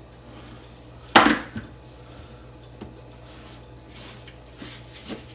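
A sharp clunk about a second in, then a few light clicks and taps: hard items in the box being handled and set down while unpacking.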